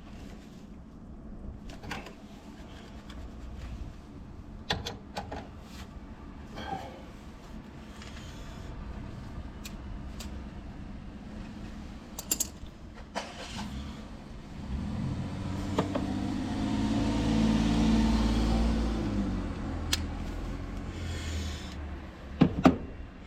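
Scattered clicks and knocks of handling work, with a vehicle engine's running sound swelling and then fading over several seconds in the middle, followed by two sharp loud clicks near the end.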